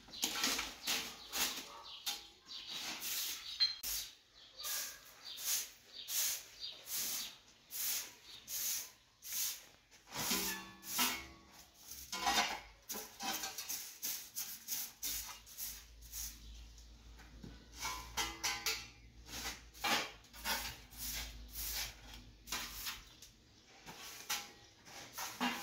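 A long run of short rustling strokes, about two a second, with a low hum under them in the second half.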